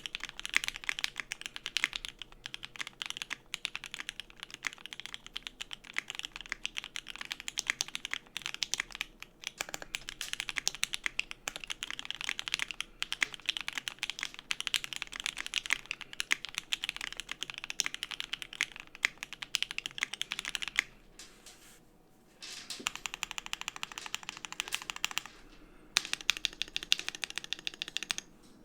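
Continuous fast typing on a custom mechanical keyboard: C3 Banana Split linear switches, lubed with Krytox 205g0, on an FR4 plate in an aluminium Brutal60 case with ePBT keycaps. The keystrokes pause for about a second a little past two thirds of the way through, then resume.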